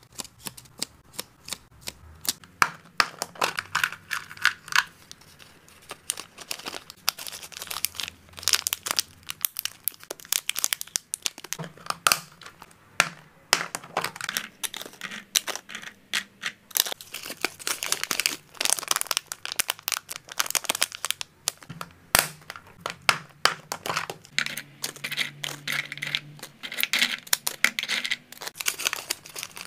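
Close-up handling of plastic packaging: sticker labels peeled off a backing roll, latching lids of clear plastic food containers opened and handled, and clear plastic snack bags crinkling. The sound is a dense run of sharp clicks, crackles and crinkles.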